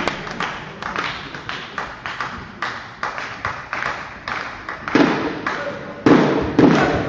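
Spectators clapping between rallies: scattered claps that thin out, then from about five seconds in heavier rhythmic thumps begin.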